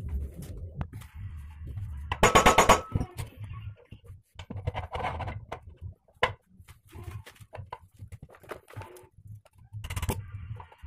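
Workshop metalwork: scattered clicks, knocks and metal clinks, with a short, loud, rapid rattle about two seconds in and a shorter one near the end.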